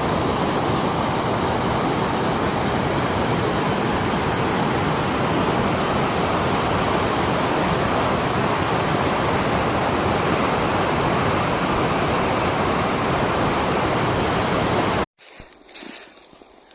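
Steady loud rush of a waterfall's falling water, which cuts off suddenly near the end and gives way to much quieter sounds.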